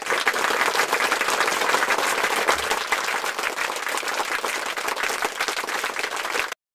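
Applause sound effect: a crowd clapping steadily, cutting off suddenly near the end.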